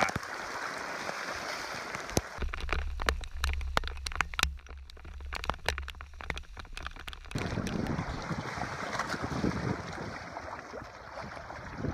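Storm wind and water around a Hobie Adventure Island sailing trimaran running downwind in a gale: first an even hiss of rain and wind, then about two seconds in a low wind rumble on the microphone with many sharp ticks of drops striking the camera, and from about seven seconds in, rushing, splashing waves against the hulls.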